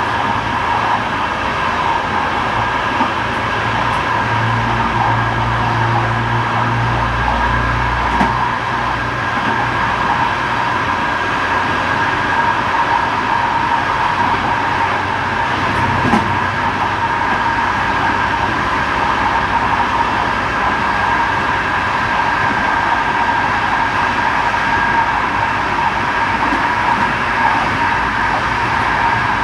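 Train running along the track at speed: a steady rolling noise with a constant high whine. A low hum rises under it a few seconds in and fades out about ten seconds in.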